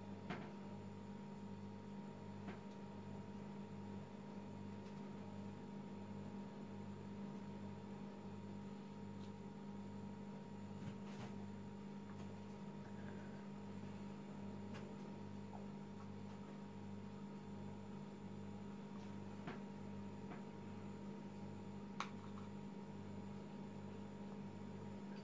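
Steady low electrical hum with a slow, regular pulsing throb beneath it, a little more than once a second. A few faint clicks.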